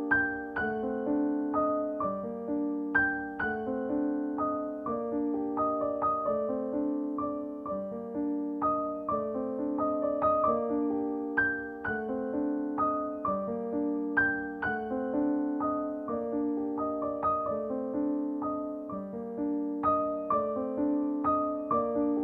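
Gentle background piano music: a steady pattern of sustained notes struck at a regular pace.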